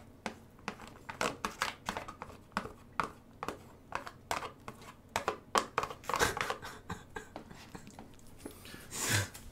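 Wooden spoon scraping and tapping cooked instant rice out of a plastic rice tray into a paper noodle cup: a run of short clicks and scrapes, a few each second, busiest about six seconds in.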